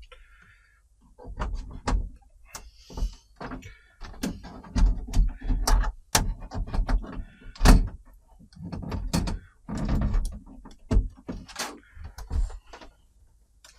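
A run of knocks, bumps and clicks from someone moving about and handling things, with the sharpest knock about eight seconds in.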